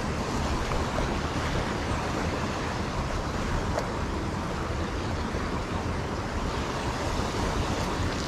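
River rapids rushing over rocks in a steady, even wash of water noise, with a few faint clicks.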